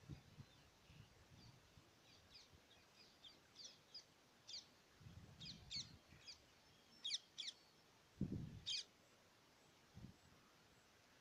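Faint birdsong: a bird giving short, high, quickly falling chirps in irregular runs, strongest near the end. A few soft low thuds come between them.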